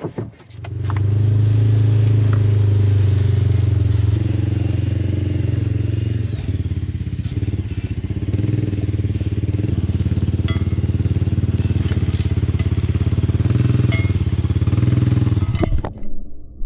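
Small vehicle engine comes on under a second in, runs steadily with a strong low hum, then stops abruptly about a second before the end.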